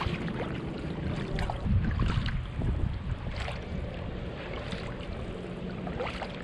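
Kayak paddle strokes dipping and splashing in calm sea water, a splash every second or so, over low wind rumble on the microphone.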